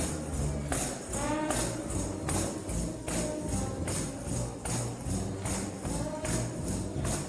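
Trombone shout band playing gospel music: brass holding and changing low chords while a tambourine jingles on a steady beat.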